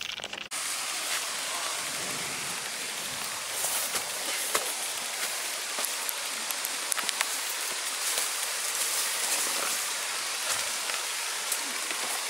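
Steady hiss of running water from a hillside stream, starting abruptly about half a second in, with scattered light clicks of footsteps on the trail.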